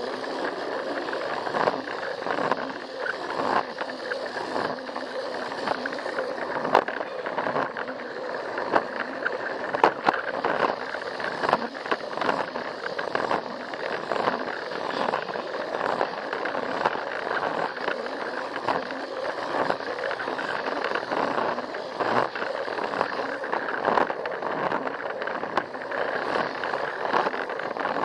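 Plarail toy train's small battery motor and gears whirring steadily as it runs along plastic track, with frequent sharp clicks and clacks as the wheels pass over the track joints.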